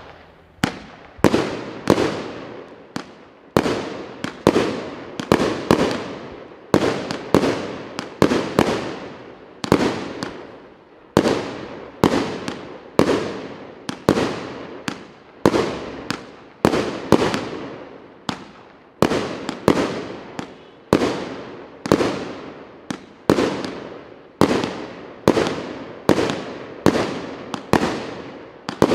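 A 200-shot, 1.2-inch 'Nebesnaya ladya' fireworks cake (battery) firing a steady, rapid sequence of shots, about one and a half a second, each a sharp bang followed by a fading tail.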